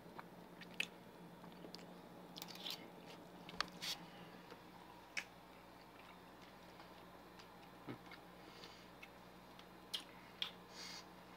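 A person chewing and biting into a mouthful of microwaved sesame chicken with crispy water chestnuts, faint, with scattered short sharp clicks over a steady low hum.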